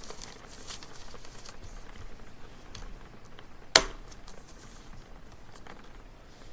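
Quiet library ambience: soft rustling and light clicks, with one sharp knock about four seconds in.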